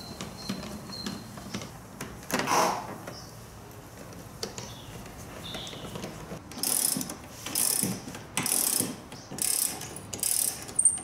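Hand ratchet clicking in a run of about six short strokes, starting past the middle, as the fuel tank's mounting bolts are done up. A single knock a couple of seconds in.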